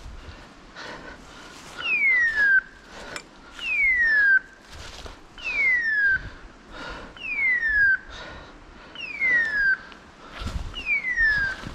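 Beeper collar on a pointer in point mode, sounding a falling hawk-scream tone six times, evenly spaced about every second and three-quarters, starting about two seconds in: the signal that the dog has stopped and is holding point. Steps rustle in dry leaf litter between the tones.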